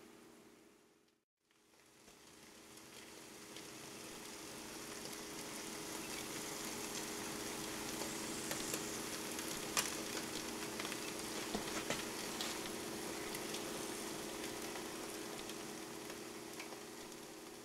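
Omelette eggs frying in a pan, a steady sizzle. It cuts out briefly about a second in and fades back up. A few faint clicks come around the middle.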